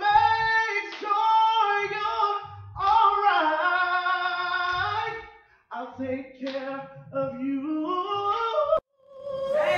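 A man singing unaccompanied in a high voice, holding long notes and sliding through runs. Past the middle he drops lower and climbs upward step by step, and the singing breaks off abruptly near the end.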